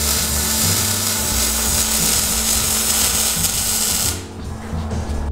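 Arc welder sizzling and crackling steadily as an exhaust pipe is welded under a car. The arc stops about four seconds in and strikes again right at the end.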